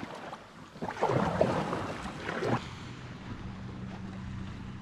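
Wind buffeting the microphone and water splashing around the hulls of a Hobie Tandem Island sailing kayak in the shallows, in two surges during the first half. Then a steady low hum takes over at about the midpoint.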